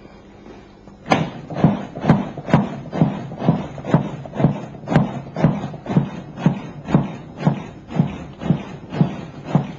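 Chest compressions on a CPR training manikin: a steady run of thumps, about two a second, starting about a second in.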